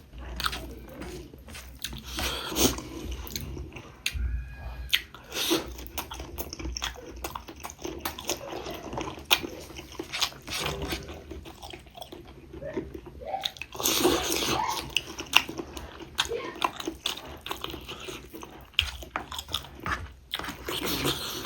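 Close-miked eating sounds: chewing and biting into pork ribs with rice, with irregular wet mouth clicks and smacks and a few louder bites.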